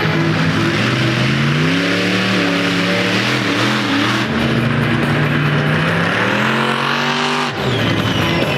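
Monster truck engine revving hard. Its pitch climbs about two seconds in, holds high and steady, then drops off suddenly near the end as the throttle is released.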